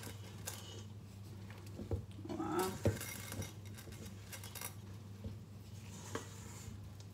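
Light scattered clicks and rattles of a child's hand handling M&M's candies in a small ceramic bowl, with a spoon knocking in a stainless steel mixing bowl near the end. A low steady hum sits beneath, and a brief voice sound comes about two and a half seconds in.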